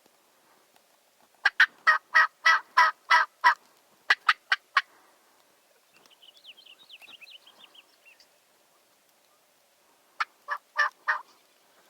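Turkey yelps: runs of short, sharp, evenly spaced notes, about three a second, in three series. A fainter, higher warbling call comes between the second and third series.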